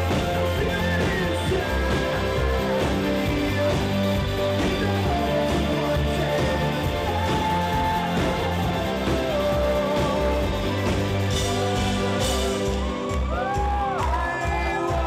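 Live rock band playing a song: drums keeping a steady beat under guitar, with a voice singing over it.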